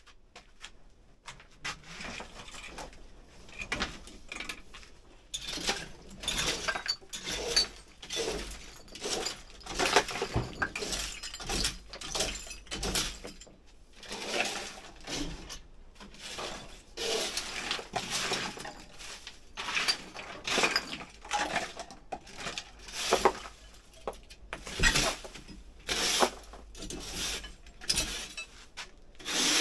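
Clattering, scraping and clinking of hard household junk being handled, shifted and dropped during a house clear-out, irregular and almost continuous after the first few seconds.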